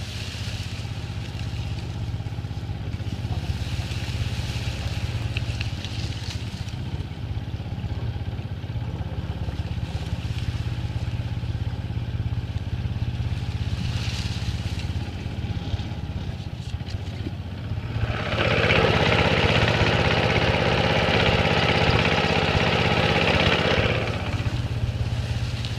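Stumpjumper mud motor on a small marsh boat running steadily at low throttle, a low drone. About two-thirds of the way through it runs louder for some six seconds, then drops back.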